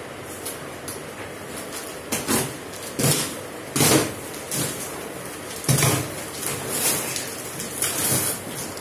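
Plastic wrapping on a rolled foam mattress crinkling and rustling as it is pulled open by hand, in several irregular bursts.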